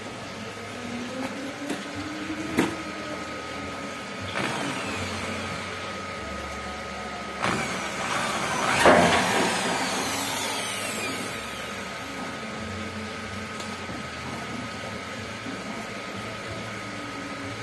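Cordless drill running in several short bursts, driving self-drilling screws into a steel gate; the loudest burst comes about 9 seconds in.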